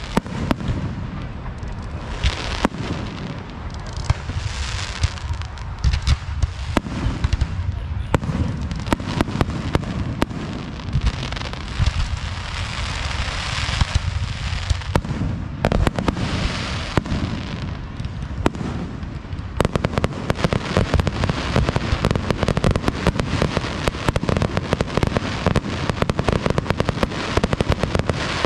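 Aerial firework shells bursting overhead in a continuous string of bangs and crackling. The crackle grows denser from about two-thirds of the way through.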